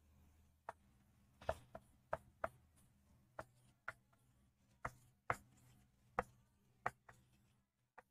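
Faint marker pen strokes on a whiteboard as letters are written: a dozen or so short, irregularly spaced taps as the tip strikes and drags across the board.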